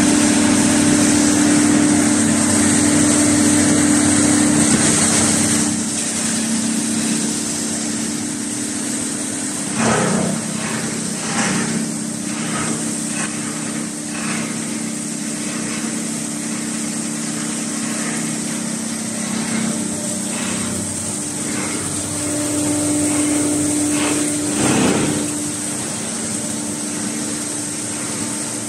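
Plastic film crusher and its blower running: a steady machine hum with a high whine, louder for the first five seconds or so. From about ten seconds in there are irregular short louder bursts.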